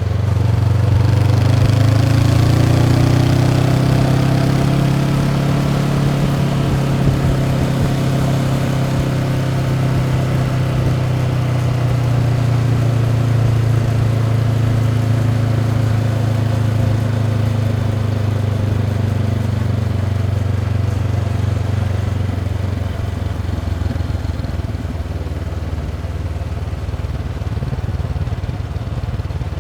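Honda CB500X parallel-twin engine running through its stock exhaust while being ridden: the revs climb in the first couple of seconds, then hold at a steady cruise and ease off slightly near the end.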